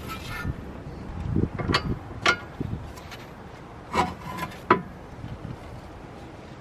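Hand tools clinking and knocking against metal parts of a car's steering linkage, with a few sharp metallic knocks, two of them about two seconds in and two about four seconds in, and some rubbing and scraping between them.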